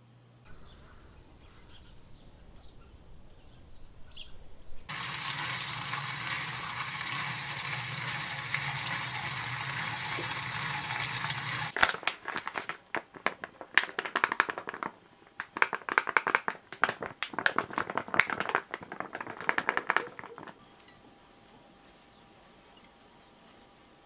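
A steady rushing hiss for about seven seconds. Then, for about eight seconds, a dense run of crisp rustles and clicks as flour-dusted shepherd's purse greens are tossed on a plate with metal tongs.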